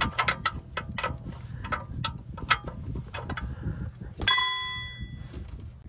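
Ratcheting wrench clicking in quick, uneven runs as it works the ball joint fasteners on a 1991 Toyota 4Runner's front suspension. About four seconds in, a single metallic clang rings out and fades over about a second.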